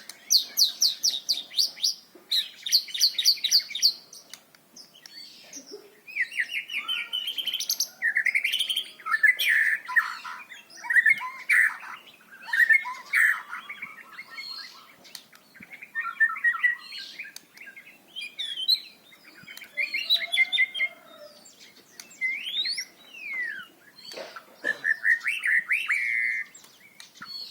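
White-rumped shama singing a loud, varied song. Fast trills of rapid repeated notes in the first few seconds give way to rich warbled phrases and whistled slurs, with short pauses between phrases.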